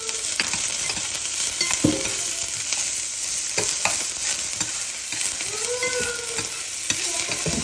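Chopped onion frying in olive oil in a pan on high heat, a steady sizzle, with a few short knocks of a utensil stirring in the pan.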